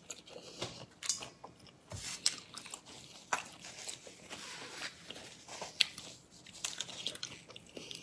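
Close-miked eating sounds: biting and crunchy chewing with sharp crackles as a cooked shrimp's shell is peeled by hand, then paper tissue rustling as fingers are wiped, around the middle.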